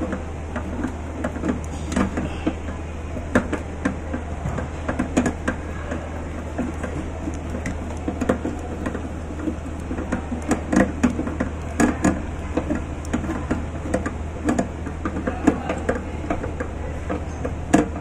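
Hand screwdriver turning the screws that hold a replacement magnetron inside a microwave oven: irregular small metal clicks, knocks and scrapes of the tool and screws, over a steady low hum.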